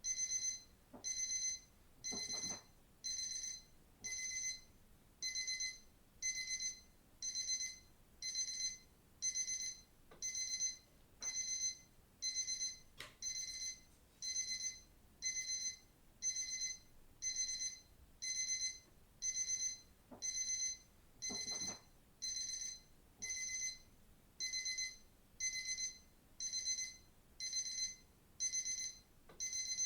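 Digital watch alarm beeping: short bursts of high-pitched beeps repeating about once a second, steady and unchanging.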